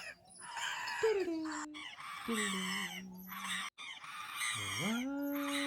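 Edited wordless singing: a voice slides down into several long held notes, then swoops up from low into a final long held note near the end, with a nasal, honk-like timbre.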